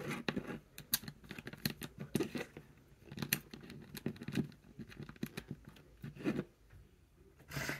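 Small plastic Lego pieces clicking and scraping as they are handled and pressed together on a tabletop, a run of irregular light clicks, with a short rustle near the end.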